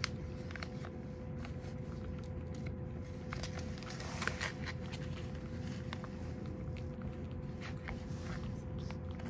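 A cat eating wet food from a ceramic bowl: an irregular run of small wet licking and chewing clicks, over a steady low background hum.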